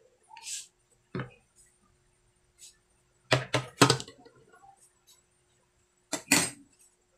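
Short, sharp knocks and clinks of kitchen containers and utensils being handled and set down on a tabletop: one a second in, a quick run of three around the middle, and two more near the end.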